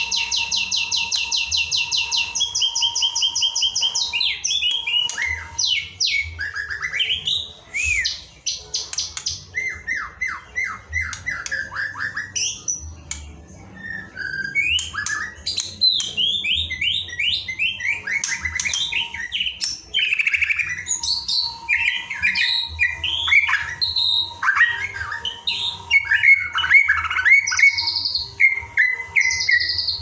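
White-rumped shama (murai batu) singing a long, varied song. It opens with a fast run of repeated high notes, then moves through rich whistled phrases, rising and falling sweeps and chattering notes.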